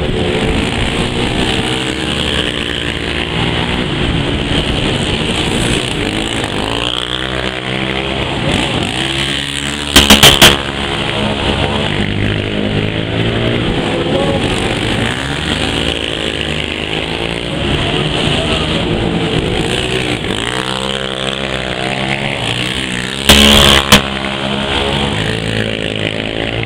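Motorcycle engines running and revving unevenly, with two short, much louder bursts, one about ten seconds in and one a few seconds before the end.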